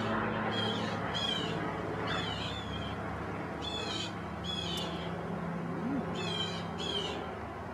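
A bird chirping: about seven short calls, often in pairs, a second or two apart, over a steady low hum.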